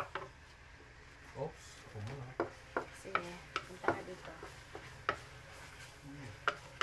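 Wooden spatula stirring chopped onions in a wok, with a series of sharp, irregularly spaced knocks and scrapes against the pan.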